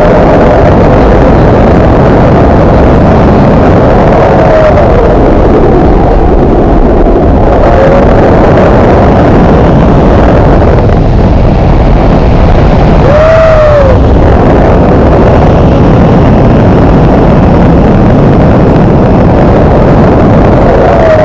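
Loud, steady wind buffeting the microphone of a camera carried in flight on a paraglider. A few short wavering whistles rise above it, the clearest about thirteen seconds in.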